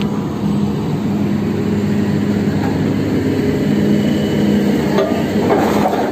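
Diesel engine and hydraulics of a Sany SR150C rotary drilling rig running steadily as its drilling tool is hoisted out of the bore. A brief rattle comes near the end.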